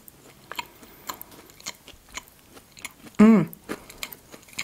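A person chewing a mouthful of pastry close to the microphone: soft, irregular mouth clicks and smacks. About three seconds in comes one short hummed voice sound, the loudest moment.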